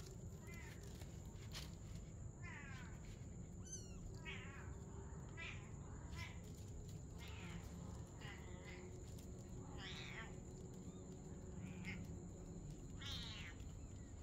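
A kitten mewing again and again: about nine short, high calls, a second or two apart.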